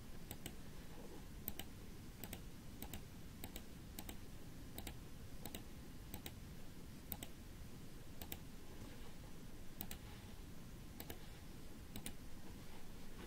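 Faint computer mouse and keyboard clicks: irregular single clicks and quick pairs, one or two a second, over low room noise.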